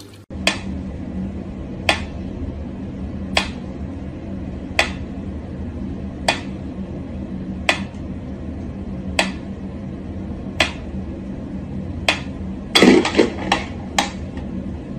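Mechanical pyramid metronome ticking slowly and evenly, about one tick every second and a half. Near the end there is a short cluster of louder knocks and rattles.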